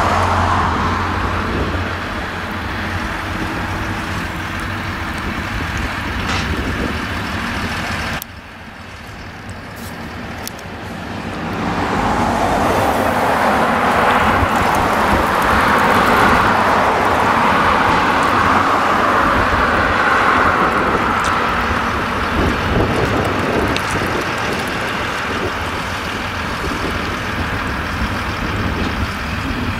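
Tractor engine running steadily as it pulls a rotary hay rake. It cuts off abruptly, and a passing lorry follows: its engine and tyre noise swell loud and then slowly ease off into road traffic.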